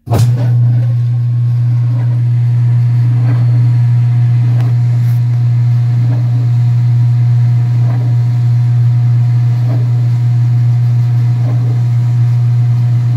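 2017 Speed Queen top-load washer spinning a load of towels: a loud, steady motor hum, with a faint tick about once a second.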